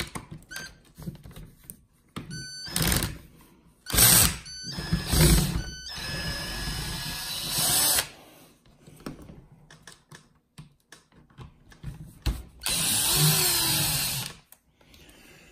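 Cordless drill/driver with a hex bit extension backing screws out of an RC nitro truggy's chassis. The motor runs in a few short spurts, then in two longer runs of about two seconds each.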